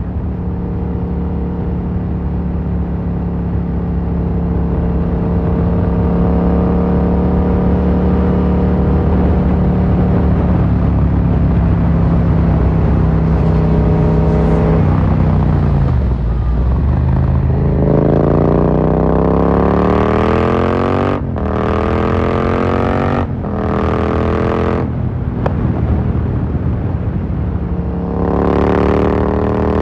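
Yamaha MT-07's parallel-twin engine through an Akrapovic carbon full exhaust. It holds a steady, slowly falling pitch, then drops off about halfway through. It then accelerates hard with rising pitch, broken by three quick cut-outs at the gear changes, and pulls up again near the end.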